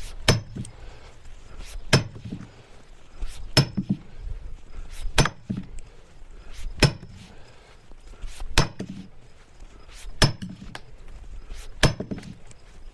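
Splitting maul striking a steel wedge driven into a black oak log, about eight heavy blows evenly paced every second and a half or so, each with a sharp metallic ring.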